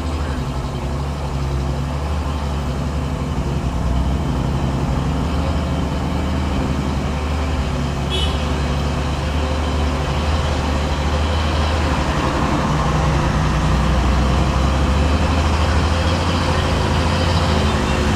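Heavy truck's diesel engine pulling under load up a steep climb, a steady low note that grows louder as the truck comes closer. A brief high chirp sounds about eight seconds in.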